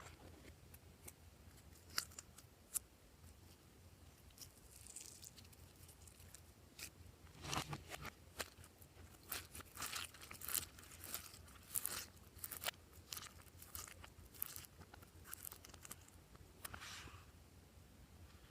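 Glossy slime being worked by hand, giving off scattered sticky clicks and crackles that come thickest about halfway through.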